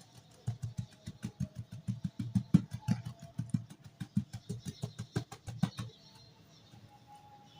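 Dry dirt lumps being crumbled, a quick run of crunchy crackles with dull thuds, about five or six a second, that stops about six seconds in.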